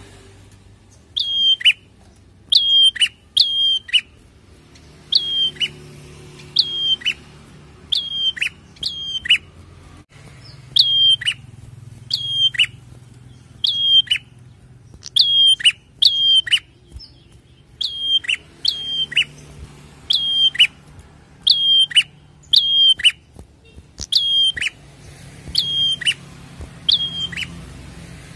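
Prenjak calling repeatedly: sharp, high notes that each drop away in a quick downward slur, given in clusters of two or three every second or two.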